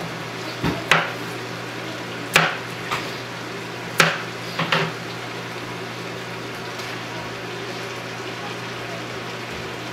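A kitchen knife strikes a plastic cutting board in about seven sharp knocks during the first five seconds as food is chopped, then stops. A steady low hum runs underneath.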